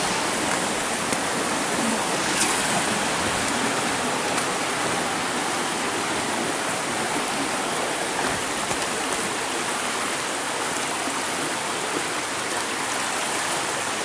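Rocky forest creek running steadily over stones and small cascades, a constant rush of water.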